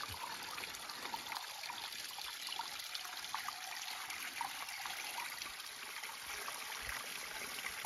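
Small spring-fed stream trickling over rocks, with water running into a soft plastic water bladder held under the flow.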